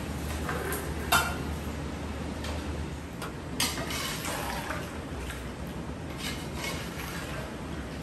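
Long metal spoon stirring and scraping chicken pieces in a large aluminium pot, with sharp clinks of metal on metal, the loudest about a second in and again about three and a half seconds in.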